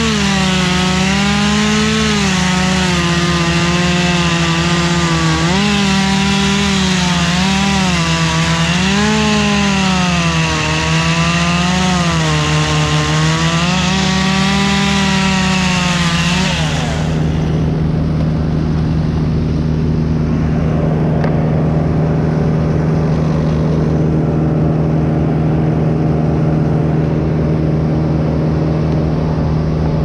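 Chainsaw cutting through a Canary Island pine limb, its pitch rising and falling as it loads in the cut. About seventeen seconds in the saw stops and a steady engine hum remains.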